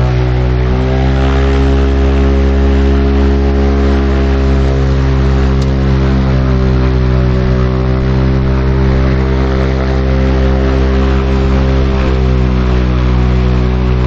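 Light sport aircraft's piston engine and propeller running at steady power, heard from inside the cabin, the pitch rising a little about a second in and then holding with small wavers.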